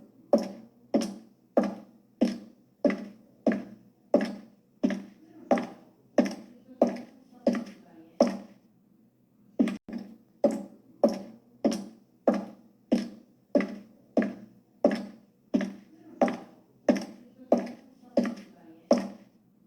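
High-heeled shoes walking at an even pace: sharp heel clicks about one and a half a second. The steps stop for about a second a little before halfway, then resume.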